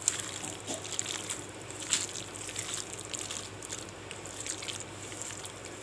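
A hand squishing raw chicken pieces, sliced onion and wet spice paste in a steel bowl as it mixes the marinade: soft, irregular wet squelches and clicks.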